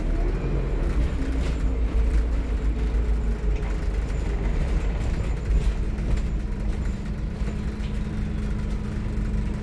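Alexander Dennis Enviro400 MMC double-decker bus engine running loud as the bus drives, heard from inside the passenger saloon: a deep drone with engine tones that shift in pitch at first, then settle into a steady hum about halfway through.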